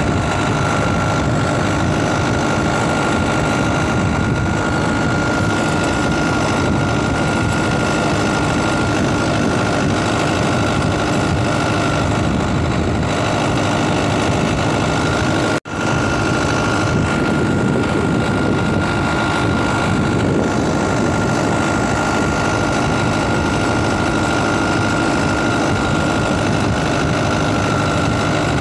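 Engine idling steadily, with a constant high whine over it; the sound cuts out abruptly for a split second about halfway through, then resumes unchanged.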